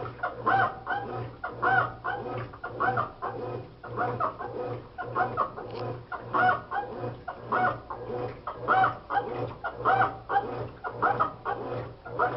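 Consul Maré top-loading washing machine agitating, its motor humming steadily under a rhythmic squealing noise, about two squeals a second, in step with the agitator's back-and-forth strokes. This is the agitation noise the owner cannot explain, present after the mechanism assembly, seal, bearings and capacitor were replaced, with the drum seeming to turn well below its rated 735 rpm.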